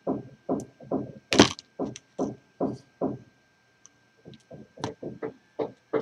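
Hand wire stripper-crimper squeezed again and again to crimp a spade terminal onto a wire: short clacks about three a second, one sharper snap about a second and a half in, a brief pause around three seconds, then quicker, lighter clicks.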